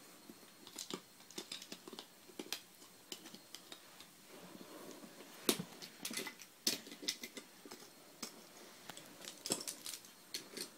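Light, scattered clicks and knocks of wooden toy train pieces being handled and knocked together, coming in small clusters.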